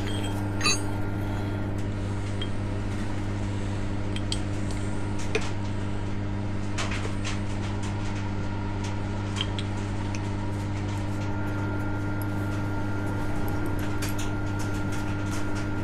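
Steady electric machine hum in a workshop, even and unchanging, with scattered light metallic clicks and clinks from metal parts being handled.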